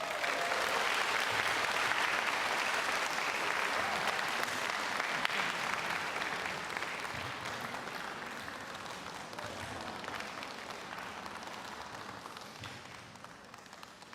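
Audience applauding, starting at once at full strength and slowly dying away over about fourteen seconds.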